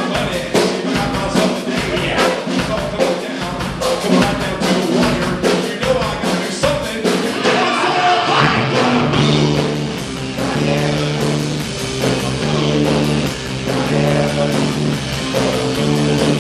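Live rock band playing: electric guitar, drum kit and a man singing into the microphone. Steady drum hits drive the first half; about halfway through the drumming thins out and held guitar chords ring on.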